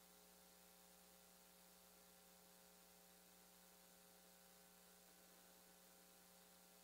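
Near silence with a faint, steady hum that does not change.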